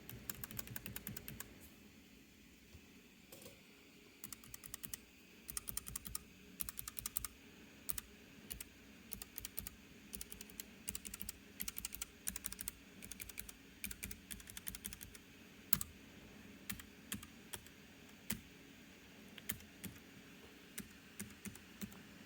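Typing on a Keychron K3 keyboard with red optical switches: quiet, soft keystrokes in quick bursts with short pauses, not clicky.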